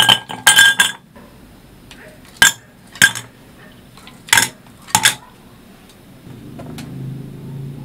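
Ice cubes dropped into an empty double-walled glass tumbler, clinking against the glass with a short ring: a quick cluster in the first second, then about five single clinks over the next four seconds. A soft low rumble follows near the end.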